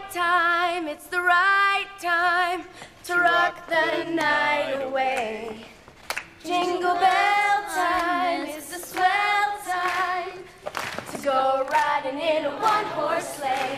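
A woman singing slow, drawn-out notes with strong vibrato and little accompaniment.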